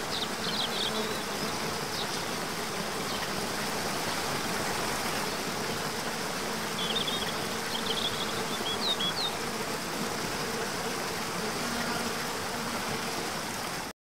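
Waterfall rushing steadily over rocks into a pool, with a few short, high chirps about a second in and again a little past the middle.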